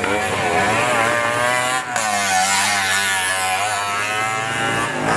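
Small engine sound of an auto-rickshaw running, its pitch wavering up and down unevenly. It is laid over the toy.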